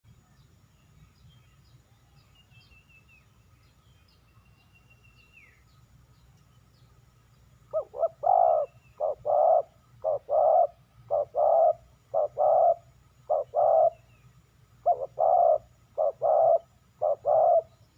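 Spotted dove cooing: about ten phrases of one or two short notes followed by a longer coo, repeated about once a second, starting around eight seconds in. Faint high chirps are heard before it.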